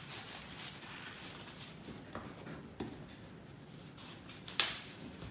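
Paper wrapping on a small package being handled and unwrapped: faint rustling and crinkling with small clicks, and one short, sharp rip about four and a half seconds in.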